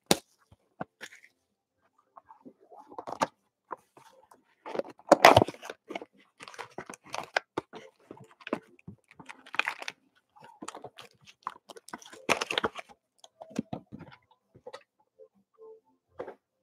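Trading card boxes and plastic-wrapped card packs being handled on a tabletop: irregular crinkling, rustling and light taps, loudest about five seconds in and again around twelve seconds.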